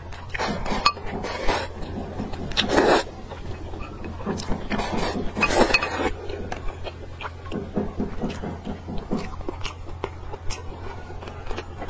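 Close-up eating sounds: glass noodles slurped and chewed, with a couple of longer slurps, and chopsticks clicking against a glass bowl. A steady low hum sits underneath.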